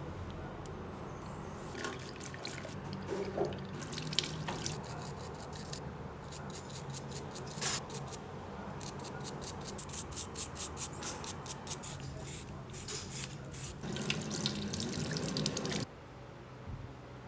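Bicycle rear cassette hub's freehub ratchet clicking, a fairly regular run of about four to five clicks a second, over a low steady hum. It stops abruptly near the end.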